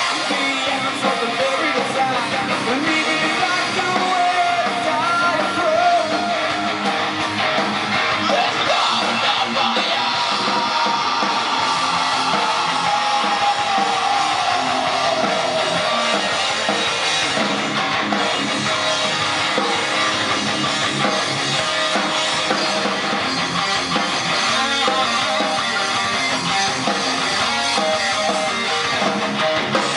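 A live rock band playing at full volume: distorted electric guitars over a drum kit. About halfway through, a long high note slides downward in pitch.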